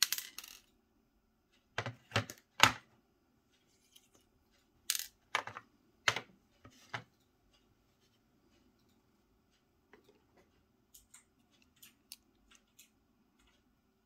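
Sharp metal clinks and clatters as an M&C Matrix lock is taken apart, small metal parts striking a hard surface. A quick cluster comes at the start, three loud clinks about two seconds in, a few more between five and seven seconds, then faint ticks near the end.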